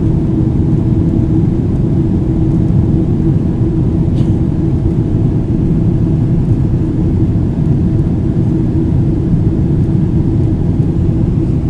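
Steady low drone inside the cabin of a Boeing 777-300ER in flight: engine and airflow noise, with a steady hum running through it.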